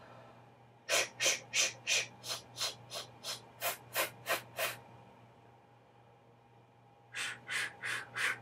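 Breath-support exercise from a voice lesson: a run of twelve short hissed consonant pulses at about three a second, each pushed out from the abdomen. After a pause of about two seconds, a second run starts near the end.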